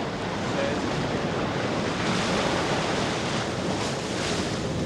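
Stormy sea: waves and wind in a steady rush that swells about two seconds in and again near the end.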